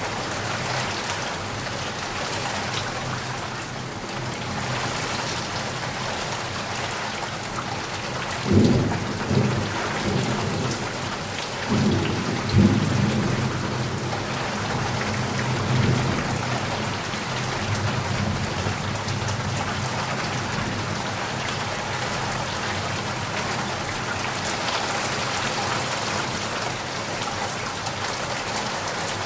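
Steady rain falling, with rolls of thunder rumbling low about a third of the way in and dying away over several seconds.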